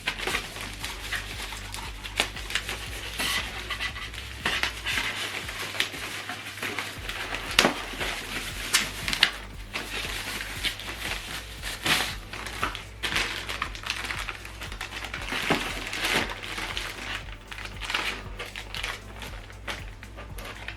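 Packaging rustling and crinkling, with scattered clicks and light knocks, as a boxed speaker is unwrapped and handled. A steady low hum runs underneath.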